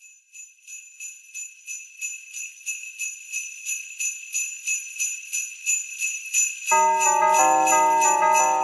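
Sleigh bells shaken in a steady beat, about three shakes a second, opening a song on the soundtrack. About seven seconds in, other instruments join with a tune under the bells.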